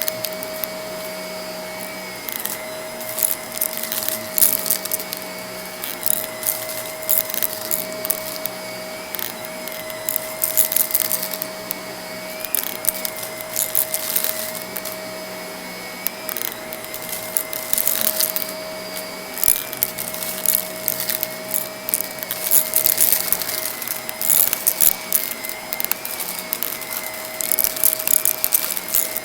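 Vacuum cleaner running with a steady motor whine while sucking up crunchy debris from a rug, giving repeated irregular bursts of crackling and rattling as bits go up the hose.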